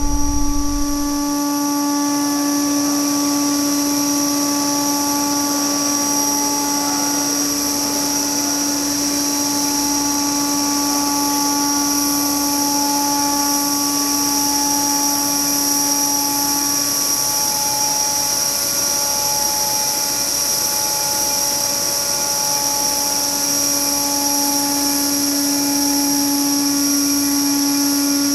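Zuccato Energia ZE-150-LT ORC power module running: a steady, high-pitched machine whine made of several constant tones, with a lower hum that drops away for a few seconds in the middle and then returns.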